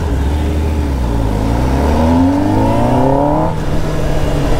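Kawasaki Ninja ZX-10R's inline-four engine accelerating under the rider: the engine note climbs steadily for about two seconds, then drops back and holds steady near the end.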